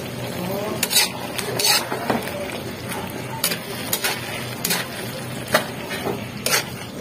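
Metal ladle scraping and knocking against a wide aluminium wok as it stirs thick grated papaya cooking in coconut milk, in about ten irregular strokes.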